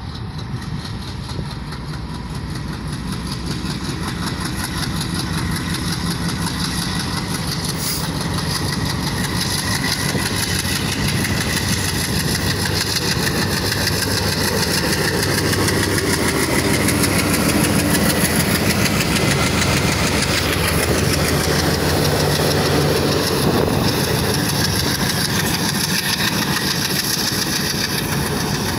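WDG3A diesel locomotive's ALCO 251 engine running as the locomotive approaches. It grows steadily louder to a peak about two-thirds of the way through, then eases slightly.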